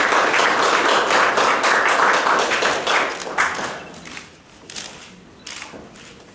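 Audience applause, a dense patter of many hands clapping that dies away about three and a half seconds in, leaving only a few scattered clicks.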